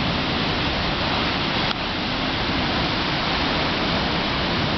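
Snoqualmie Falls, a large waterfall, rushing steadily as a dense, even wall of water noise, with a brief slight dip just under two seconds in.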